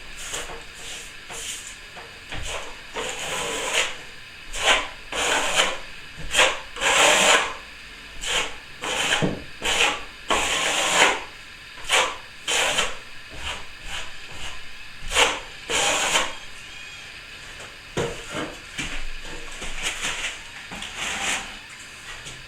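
A plastering tool scraping over ceiling plaster in a series of irregular strokes, each under about a second, with a couple of short pauses.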